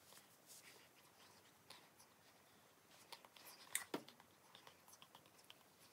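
Faint handling noise while a wig is put on and adjusted: light rustling and scattered small clicks, the sharpest a pair of taps nearly four seconds in.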